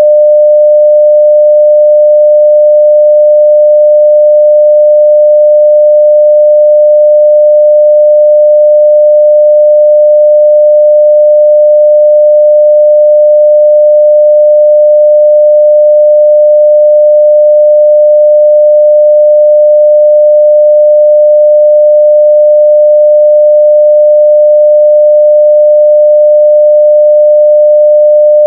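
A steady 600 Hz sine-wave test tone at full level (0 dB), a single pure pitch held unchanged.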